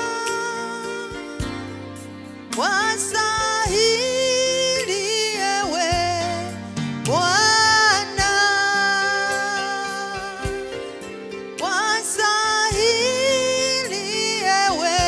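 Gospel song: a singing voice over keyboard chords and a steady beat.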